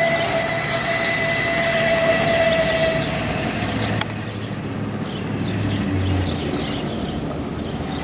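Kunray 72 V 3000 W brushless motor of an electric go-kart whining steadily at speed over a broad hiss; the whine fades about three seconds in, leaving mostly hiss.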